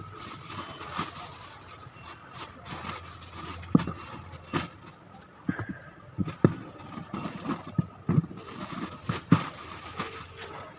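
Packing sounds: cloth and plastic bags rustling, with scattered knocks and thumps as items are pressed down into a cardboard box, over a faint steady hum.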